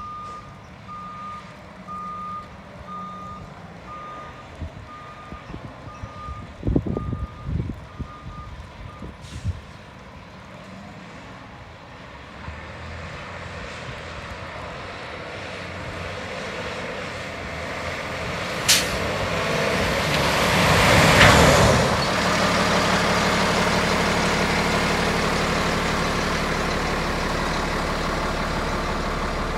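2011 Freightliner M2 dump truck with a Cummins ISC diesel: its reverse alarm beeps evenly for about nine seconds, then the diesel grows louder as the truck drives up. Air brakes give a sharp hiss and then a louder burst of hissing, after which the engine idles steadily.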